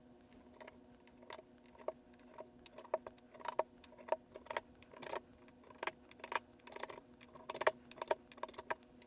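Socketed 4164 DRAM chips being pulled out of their sockets with a plastic IC extractor tool: a string of light, irregular clicks and clinks, a few each second.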